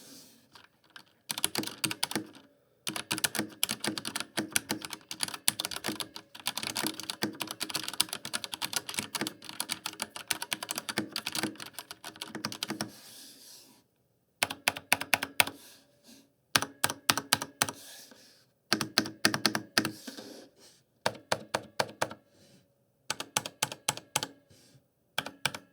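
Typing on a Varmilo Cliff Bot LIE mechanical keyboard with Cherry MX Red linear switches. Fast, dense runs of keystrokes for about the first half, then shorter bursts of keystrokes with pauses between them.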